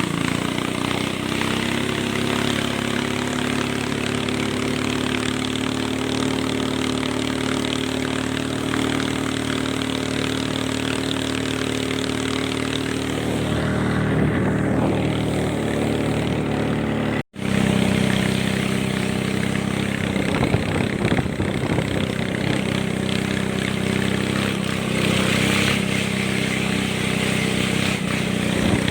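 Boat engine running steadily under way, with rushing noise over it. The sound drops out for an instant a little past halfway, then carries on.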